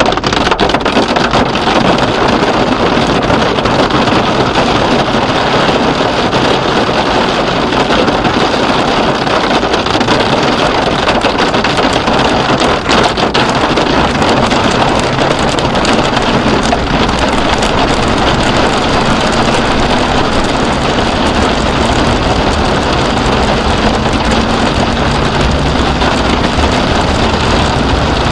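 Severe thunderstorm winds and wind-driven heavy rain pounding a vehicle, heard through its dash cam as a loud, steady rush of noise. In the last several seconds a low vehicle engine note rises in pitch as the car pulls away.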